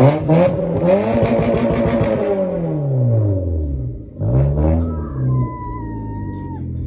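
Car engine revved in three rising-and-falling sweeps, the last one short. A thin steady whistle follows it for about a second and a half near the end.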